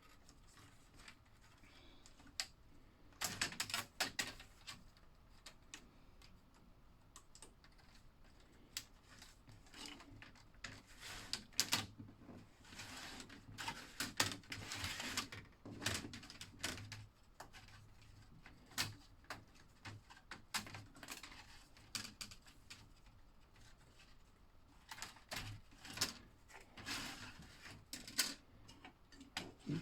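Plastic Tyco slot car track pieces being handled and snapped together, in irregular clusters of clicks and clatter.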